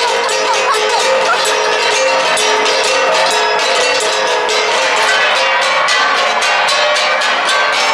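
Ensemble of Igorot gangsa (flat bronze gongs) struck in a rapid, steady beat, with the ringing metallic tones overlapping.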